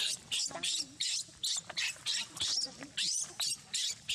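Baby macaque screaming in distress, a rapid string of short, high-pitched shrieks at about three a second.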